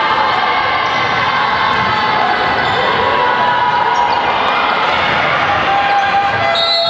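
Sounds of play on an indoor basketball court: the ball bouncing and shoes squeaking on the hardwood-style floor, with steady hall noise.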